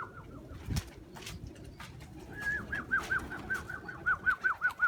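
A young pigeon (squeaker) peeping: a fast run of short, high-pitched, falling squeaks, about five a second, starting a little past halfway. A dull knock sounds about a second in.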